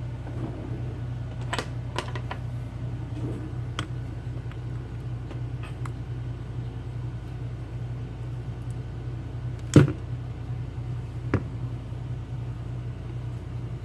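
Scattered small metallic clicks and taps from handling a lock cylinder and its parts, with one sharper knock about ten seconds in and another about a second later. A steady low hum lies under them.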